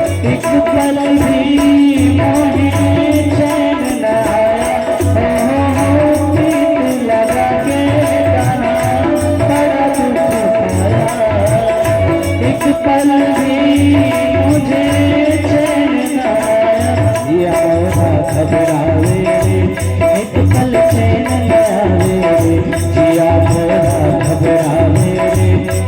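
Instrumental music: a melody line over a drum beat and a fast, even rattling percussion rhythm, as an interlude between the sung verses of a Hindi devotional song.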